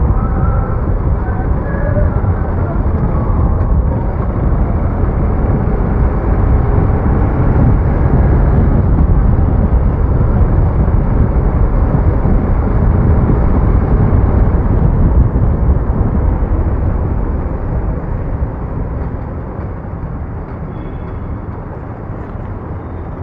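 Wind rushing over the microphone on a Bajaj Pulsar RS200 motorcycle ridden at speed, with the engine running underneath. The noise dies down a little in the last few seconds.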